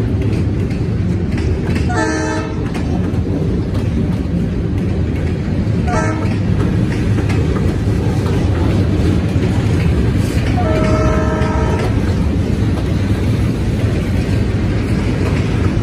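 Freight cars rolling past close by with a steady rumble and wheel clatter on the rails. A locomotive horn sounds in the distance three times: short about two seconds in, very brief about six seconds in, and a longer blast of about a second near the end.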